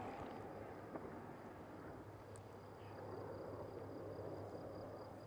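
Faint, distant drone of a CASA C-295M transport plane's twin turboprop engines, swelling slightly a few seconds in.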